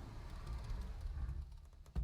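A door being swung shut: a low, steady sound of movement, then a sharp thump as it closes at the very end.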